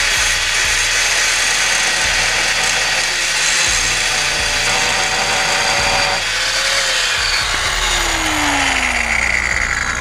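Power grinder grinding metal, cutting out a front control-arm bolt that can't be reached with a ratchet. A steady harsh noise, with a tone that falls steadily in pitch over the last few seconds.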